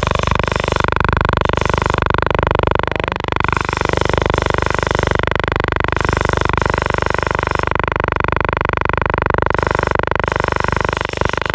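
DJI Zenmuse X5 gimbal motors buzzing steadily with several fixed tones and a fine rapid pulse: the gimbal is failing, vibrating and running hot.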